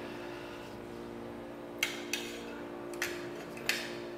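Four light clicks of eating utensils against dishes, spread over the second half, over a steady low hum.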